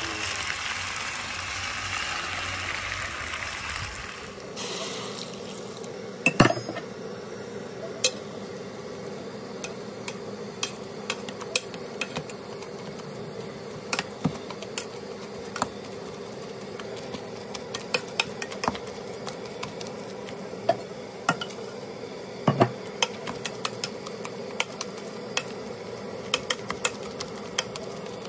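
Curried sausages sizzling in a baking dish on a Weber Q grill as tongs stir them. About four seconds in this gives way to a potato masher working boiled potatoes in a stainless steel pot: irregular metal clinks against the pot over a steady hum.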